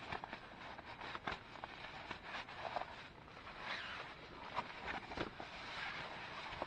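Rustling and scraping of a foil-faced foam sleeping pad being pulled out of its nylon stuff sack and unrolled, in a quick run of short, irregular handling noises.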